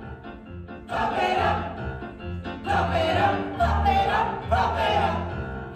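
A group of voices singing a song together over live keyboard accompaniment, the singing coming in about a second in.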